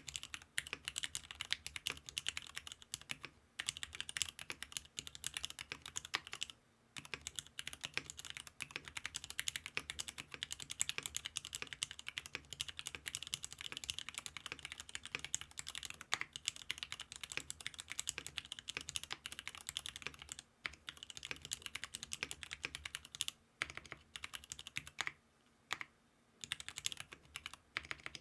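Fast typing on a custom mechanical keyboard: Cherry Nixie switches with 50 g springs in a GEON F1-8X housing with an aluminium leaf-spring plate and Poron foam, a steady stream of keystrokes broken by a few brief pauses. The builder finds the sound lacking fullness.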